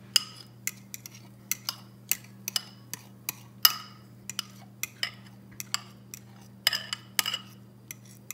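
A utensil clinking and scraping against a bowl as thick batter is worked out of it: sharp, irregular clicks, a few each second, over a steady low hum.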